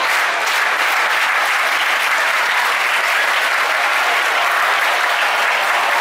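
Ballpark crowd applauding, a steady wash of clapping and crowd noise.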